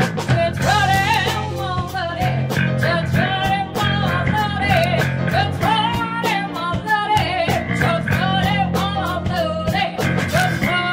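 Live 1960s-style blues-rock band playing loudly: electric guitar and drums keeping a steady beat, with a woman singing into a microphone.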